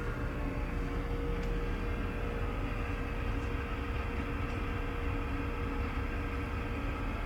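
Steady low drone of a car ferry's engines and machinery heard inside the passenger cabin, with a faint steady hum above it.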